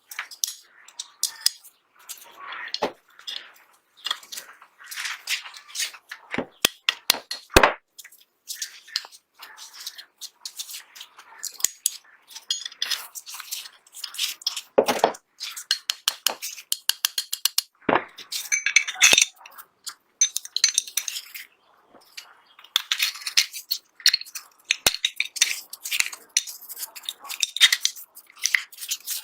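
Small metal parts of a 1911-style pistol clicking and clinking as they are handled and worked on, in many quick irregular ticks with some scraping between them.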